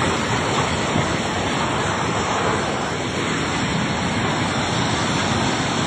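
Swollen floodwater rushing past in a steady, unbroken roar of water noise.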